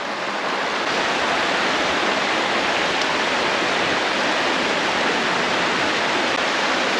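Creek water running steadily over a small riffle, a constant rushing hiss.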